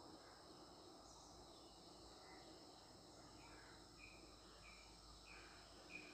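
Near silence: faint background noise with a steady high hum, and a run of five short, faint high chirps about every half second in the second half.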